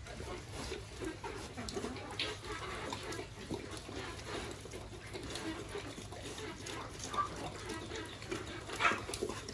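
A sow eating from a concrete trough: continuous irregular chomping and slurping of feed, with scattered sharp clicks and a louder one near the end.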